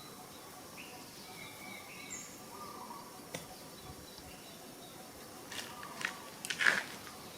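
Outdoor ambience with faint, short bird chirps in the first half, then a quick run of sharp clicks and crackles about six seconds in, the loudest sound.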